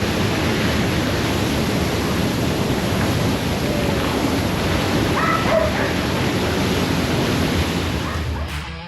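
Steady, loud rushing noise that fades out near the end, with a brief faint high-pitched call about five seconds in.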